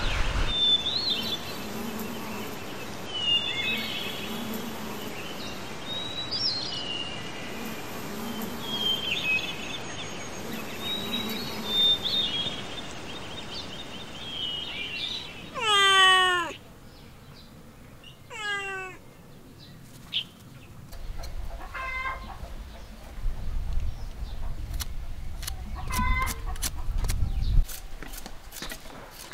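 Birds chirping over a high pulsing buzz, then a cat meowing twice, about two and a half seconds apart, each meow falling in pitch and the first the loudest. Near the end come knocks and clicks with short clucking calls of a hen.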